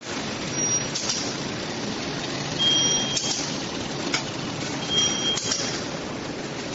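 Flat-bottom pouch making machine running: a steady mechanical clatter with a short high whine and a brief hiss about every two seconds.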